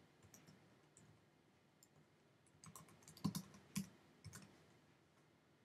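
Faint keystrokes on a computer keyboard: a short run of about half a dozen taps a little past halfway, with near silence around them.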